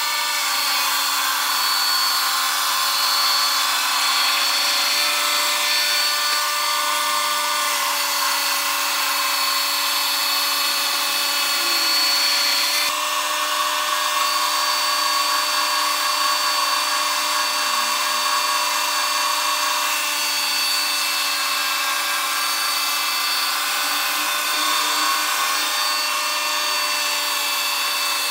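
WoodKing FB 20 horizontal band sawmill cutting lengthwise through a large log, running steadily with a constant whine over a hiss of sawdust. The tone shifts slightly about halfway through.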